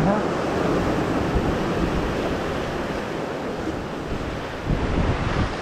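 Ocean surf breaking and washing over shoreline rocks, a steady rushing wash, with wind buffeting the microphone.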